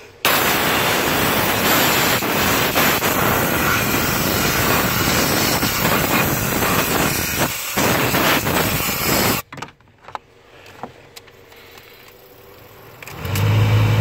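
Compressed-air blow gun blowing a steady, loud hiss of air to clear debris out of a car's cabin air filter housing. It starts suddenly and cuts off sharply after about nine seconds.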